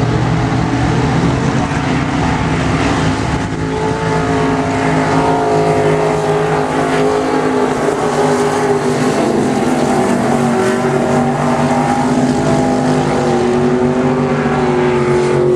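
Several dirt-track modified race cars' V8 engines running hard in a pack, their pitches rising and falling against one another as the cars accelerate and lift through the turns.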